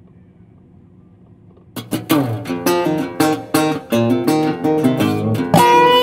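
Background music: after a short quiet stretch with only a faint low hum, a country song's intro comes in about two seconds in with rhythmic strummed guitar chords.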